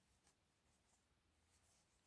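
Near silence, with faint soft rustles of yarn drawn over a metal crochet hook as single crochet stitches are worked, two of them about a third of a second and a second and a half in.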